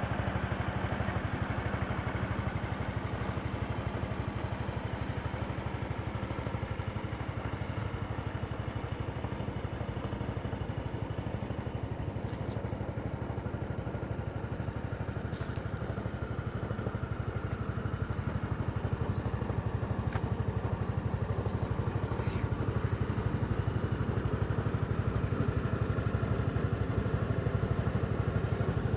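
Honda SES 125 Dylan scooter's single-cylinder four-stroke engine idling steadily on its stand. It gets a little louder near the end.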